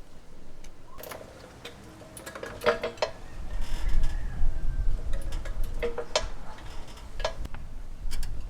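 Metal hand tools clinking and knocking against the car's underside while a front control-arm bolt is being undone, a handful of sharp clinks with short ringing over a low rumble.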